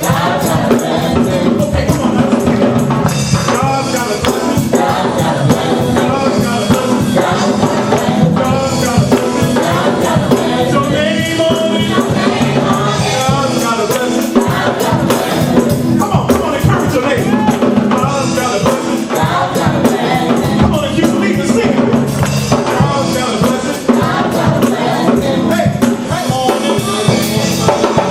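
Gospel praise music with tambourine shaken in a fast steady rhythm, sung vocals and a steady bass line.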